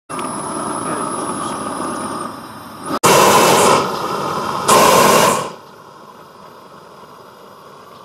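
Greenwood propane weed torch burning with a steady rushing noise, then two short loud surges of flame noise, each under a second, before it drops to a much quieter steady hiss for the last few seconds.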